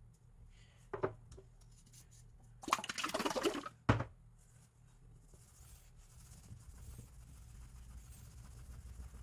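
A cloth scrubs metal polish over a steel knife blade, with a loud second-long burst of rubbing a little under three seconds in. Just after it comes a sharp knock as the metal polish can is set down on the wooden table, then softer, steady wiping of the blade.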